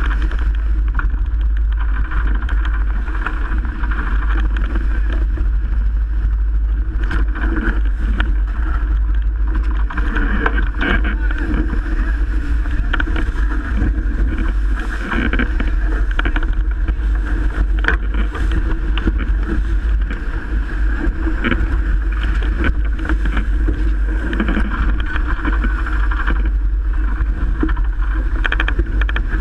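Strong wind buffeting the microphone in a constant low rumble, over the steady rush of water along the hull of a Melges 24 sailboat sailing fast in 30-plus-knot winds.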